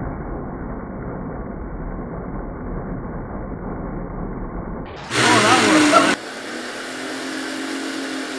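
Puck-launching robot's flywheel motor and wheels running, a steady, muffled whir. About five seconds in the sound cuts to a loud burst lasting about a second, then a steady hum.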